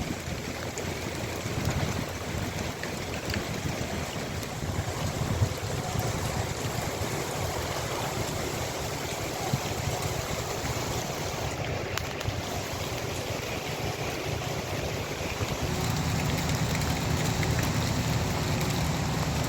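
Steady hiss of heavy rain with wind on the microphone. A low engine rumble comes up about three-quarters of the way through.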